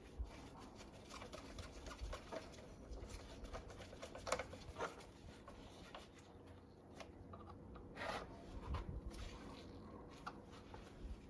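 Faint, irregular small clicks and taps of hand tools tightening the battery terminal bolts on a motorcycle, a few louder knocks among them.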